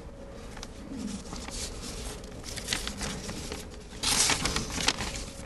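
Sheets of paper shuffled and rustled close to a lectern microphone, with a louder rustle about four seconds in.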